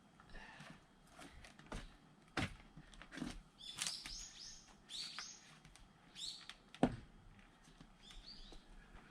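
Small bird chirping outdoors in short runs of quick high chirps, with a few sharp knocks in between, the loudest about seven seconds in.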